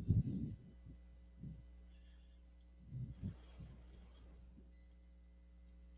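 Faint breath or rustle noises on a headset boom microphone, in two short bursts (one at the start and one about three seconds in), over a steady low electrical hum.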